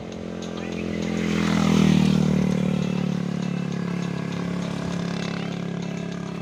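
A motor vehicle's engine passing close by. It grows to its loudest about two seconds in, then slowly fades as it goes away.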